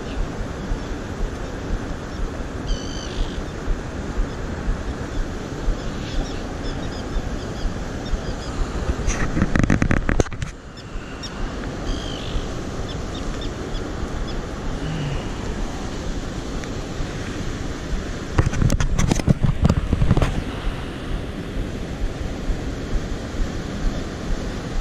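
Steady rush of fast-flowing river water with wind on the microphone. It swells into louder rumbling, buffeting stretches for about a second about nine seconds in, and again for about two seconds around nineteen seconds.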